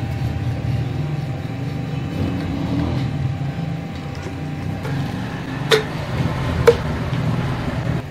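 A steady low rumble, with two sharp clicks about a second apart just past the middle. The clicks come from work on the bottle pump's piston rod as it is unscrewed and drawn out of the housing.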